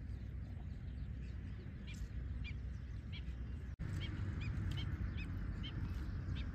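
A bird calling in short high chirps, repeated about twice a second from about two seconds in, over a steady low wind rumble on the microphone.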